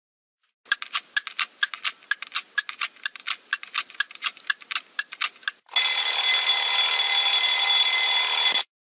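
Countdown timer sound effect: fast clock ticking for about five seconds, then an alarm ringing steadily for about three seconds before cutting off suddenly, marking the time running out.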